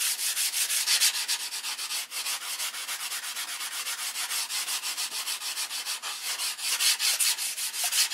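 Hand sanding a wooden model-airplane tail surface with 220-grit sandpaper. The rubbing comes in quick, even back-and-forth strokes, several a second, as a fine finishing pass on the shaped edge.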